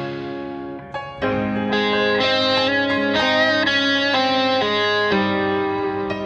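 Background music carried by a plucked guitar: sustained notes and chords that change every half-second or so, with a short break about a second in.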